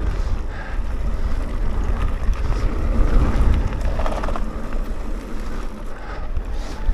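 Mountain bike riding fast down a dirt forest trail: wind rushing over the microphone over a steady rumble of tyres on the ground.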